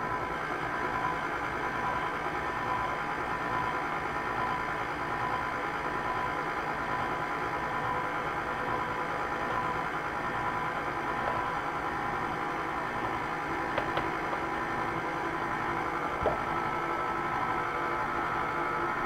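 KitchenAid Classic Plus stand mixer running steadily, its motor whirring as the beater works a thick cream cheese batter in the metal bowl. Two faint clicks come late on.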